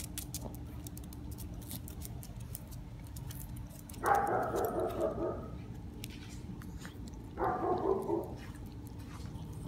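A dog barking in two short bursts of several quick barks, about four seconds in and again near eight seconds. Light scattered clicks come before them.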